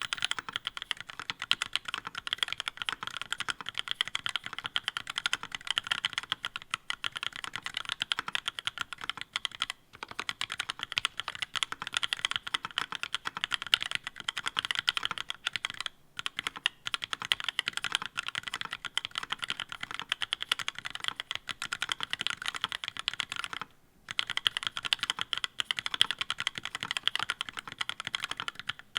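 Continuous fast typing on a mechanical keyboard fitted with ePBT keycaps, the keystrokes running together in a dense clatter with brief pauses about ten, sixteen and twenty-four seconds in.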